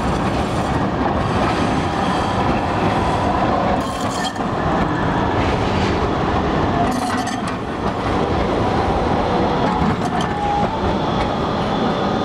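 Milan 7000-series articulated low-floor tram rolling past close by: a steady rumble of steel wheels on street track, with a few clacks and a brief thin wheel squeal near the end.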